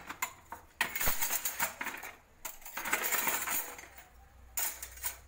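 Stainless steel kitchen utensils (ladles, spoons, a tea strainer) clattering and clinking as they are put back into a plastic utensil tray, in two longer runs of rattling and one short clink near the end.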